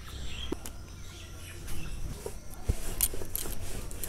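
Rolling pin knocking and rolling on a rolling board as paratha dough is rolled out, a few sharp clicks, most of them in the second half, with birds chirping faintly in the background.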